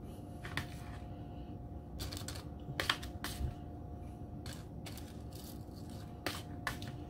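A spoon clicking and tapping against tortilla chip scoops as avocado mixture is spooned in: scattered light clicks, about nine, over a faint steady hum.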